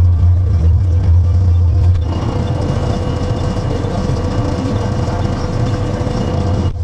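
Farm tractor engine running steadily under load. About two seconds in, the sound changes to a rougher, fuller machinery noise with a steady whine, and it cuts off abruptly near the end.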